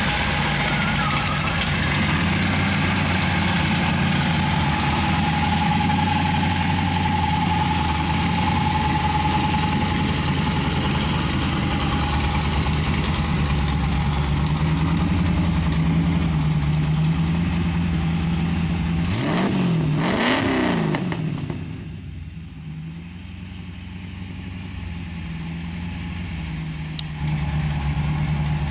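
1980 Triumph TR8's carburetted 3.5-litre Rover V8 idling steadily, then revved twice in quick succession, the pitch rising and falling with each blip, before settling back to a quieter idle.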